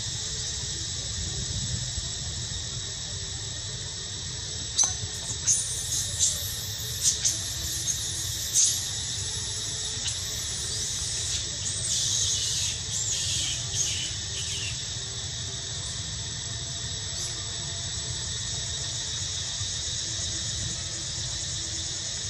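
Baby macaque giving shrill, very high squeals: a run of short, sharp squeals from about five to nine seconds in, then a rougher bout of squealing around twelve to fourteen seconds in, over a steady high hiss.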